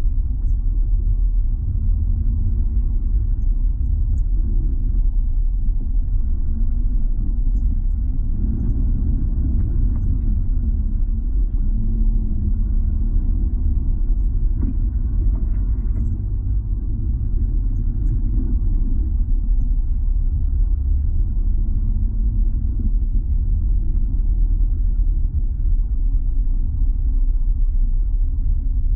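A car driving along a snow-covered road, heard from inside the cabin: a steady low rumble of the engine and tyres, with a faint engine note that wavers in pitch.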